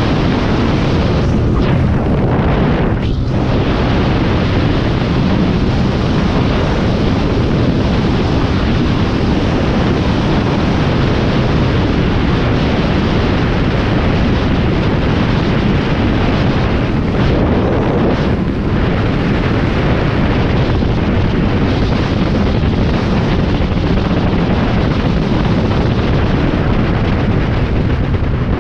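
Loud, steady wind roar buffeting the microphone of a Honda CB300 motorcycle held near its top speed of about 135 km/h in sixth gear, with no distinct engine note standing out.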